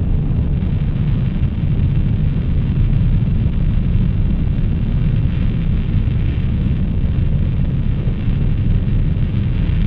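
Noise-music drone: a dense, unbroken wall of deep noise, heaviest in the low bass, holding steady without rhythm or melody.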